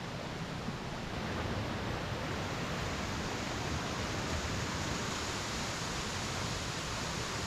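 Steady rushing of a rain-swollen stream, growing a little louder about a second and a half in.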